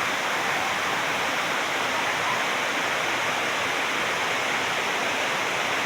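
Waterfall: water falling with a steady, even rush.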